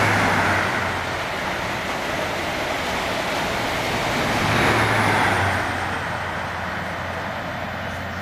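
LNER express train passing through a station at speed: a dense rush of wheels and air with a steady low engine hum from the power car. The hum swells again about five seconds in, then the sound slowly fades as the train moves away.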